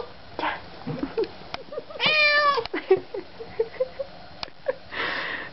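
Domestic cat meowing: one long, loud meow with a slightly falling pitch about two seconds in, with a few short, softer sounds and faint clicks around it.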